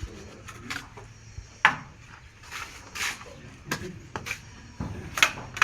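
Building work: irregular sharp knocks and short scrapes of tools on mortar and a window frame, about half a dozen, the loudest knocks about a second and a half in and near the end.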